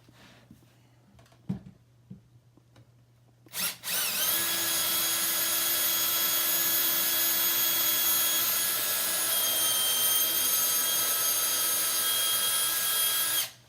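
Power drill triggered briefly, then running steadily for about nine seconds as a larger bit widens a knob hole in a cabinet door, its whine dipping slightly in pitch a little past halfway. A few light clicks come before it.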